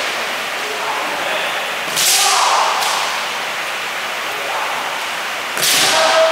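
Kendo sparring: sharp cracks of bamboo shinai striking armour, about two seconds in and again near the end, mixed with the fighters' shouted kiai.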